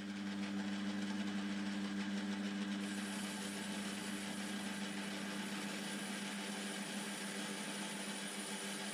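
Metal lathe running steadily with a motor hum while the tool cuts a cast iron workpiece, giving an even cutting hiss. A faint high whine joins about three seconds in.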